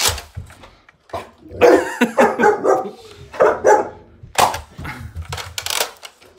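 Dog barking, with a quick run of barks about one and a half seconds in and a shorter run around three and a half seconds. A few sharp knocks come at the start and again near the end.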